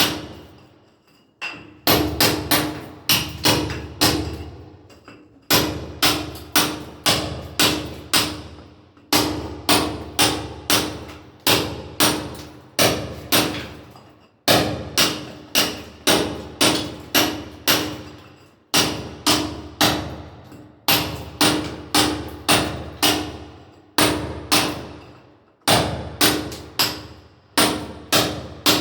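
A hammer striking a chisel in building demolition work, about two blows a second in runs of several strikes with brief pauses between, each blow leaving a short metallic ring.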